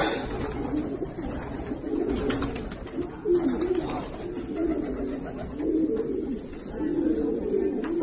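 A flock of domestic homing pigeons cooing continuously, many overlapping low coos, with scattered sharp wing flaps as birds take off and land.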